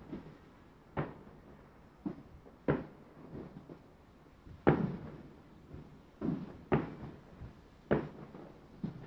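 Distant consumer fireworks and firecrackers going off: about eight scattered, irregular bangs, each with a short echoing tail, the loudest about halfway through.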